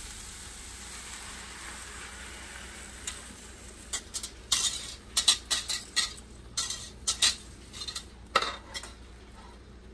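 Beaten eggs sizzling as they go into a hot oiled copper skillet of onion and broccoli. From about three seconds in, a utensil scrapes and taps against the pan in quick irregular strokes, stirring and pushing the eggs around.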